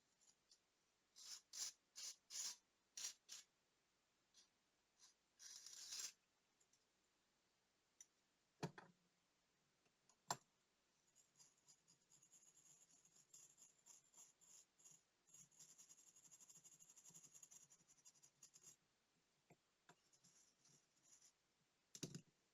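Faint handling of small watch parts with fine tools: a few short scrapes, a couple of sharp clicks, then a long stretch of fine rapid scratching or rubbing.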